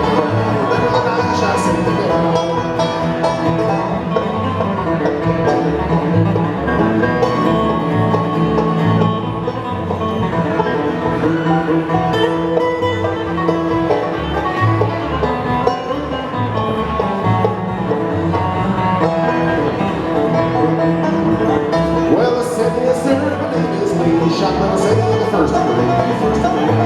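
Acoustic bluegrass band playing an instrumental stretch, with banjo and guitar over a steady bass beat.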